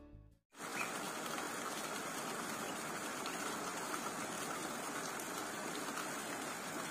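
The tail of the intro music dies away, then a steady, even rushing of a forest river or stream runs on without a break.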